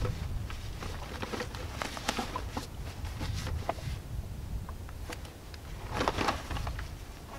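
Wind rumbling on the microphone, with soft rustling and small clicks of outdoor gear being handled by hand, and a louder rustle about six seconds in.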